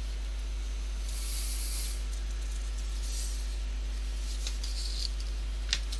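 Steady low hum and hiss of the narration microphone's background. Two brief soft hisses come early on, and a single sharp click comes near the end.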